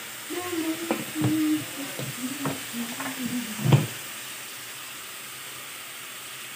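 Chicken pieces frying in oil in a pan, with a steady sizzle. Over the first few seconds a voice murmurs in the background and there are several light knocks, the sharpest just before four seconds in. After that only the sizzle remains.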